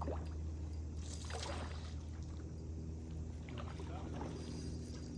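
Water splashing twice, about a second in and again past the middle, over a steady low rush of river water.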